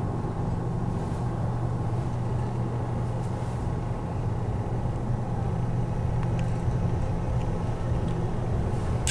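Steady low mechanical hum inside an enclosed Ferris wheel gondola while the wheel turns, with a faint thin high whine above it.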